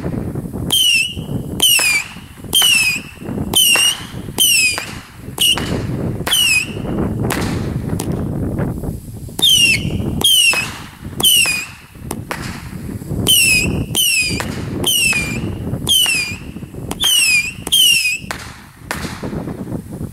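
Small firecrackers going off on the ground in quick succession, about one a second in runs with a couple of short pauses, each sharp pop followed by a brief falling whistle.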